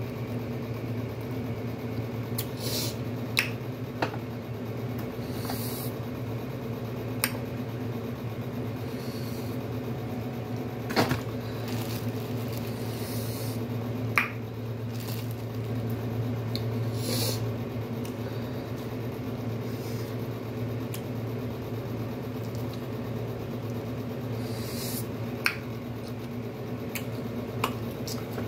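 Seafood shells being cracked and picked apart while eating, heard as sharp snaps and clicks every few seconds, over a steady low machine hum.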